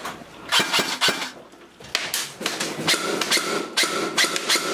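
A few sharp knocks, then an airsoft electric rifle firing several short bursts: rapid clicking over a steady whine that starts and stops with each burst.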